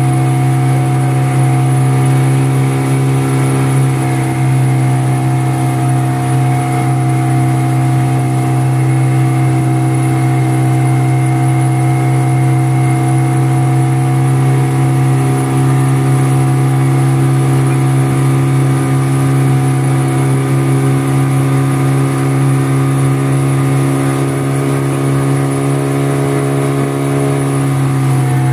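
Outboard motor driving a small river boat, running steadily at an unchanging pitch.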